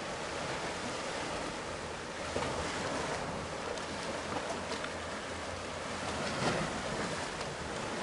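Rough sea surf washing onto a stony beach: a steady rush of waves that swells up a few times.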